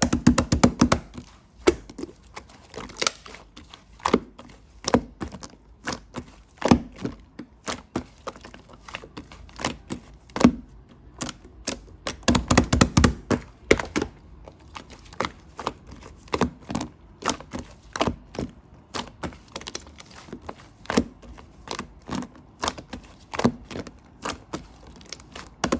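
Hands squeezing and poking slime, giving irregular sharp clicks and pops, with quick runs of clicks near the start and about halfway through.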